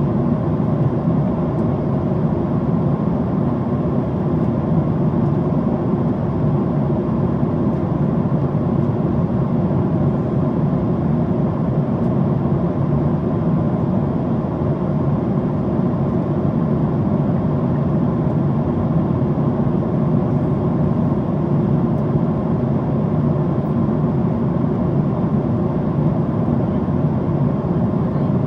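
Steady cabin noise of a Boeing 767-400ER in cruise, heard from a seat in the cabin: an even, low-pitched drone of engines and rushing air that does not change.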